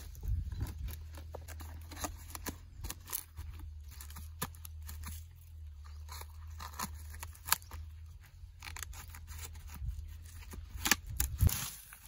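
Ears of corn being packed into a woven plastic feed sack: the sack rustles and crinkles, and the cobs knock together in scattered, irregular clicks.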